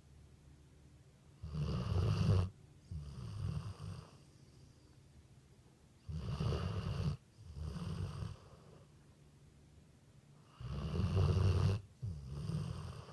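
Dog snoring in sleep: three slow breaths about four and a half seconds apart, each a louder snore followed by a softer one.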